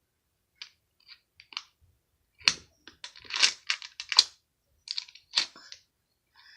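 Metal latch hardware and small wooden doors on a wooden latches board being worked by hand: a string of irregular clicks and knocks, loudest around the middle.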